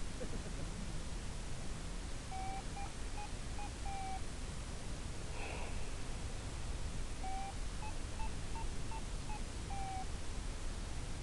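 Steady static hiss with two short runs of electronic beeps, each lasting about two seconds and stepping up then back down in pitch. A brief rush of noise comes between the two runs.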